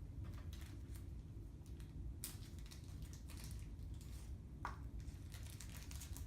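Scattered light clicks, scrapes and rustles of hands handling small plastic alarm sensors and their packaging, over a steady low hum.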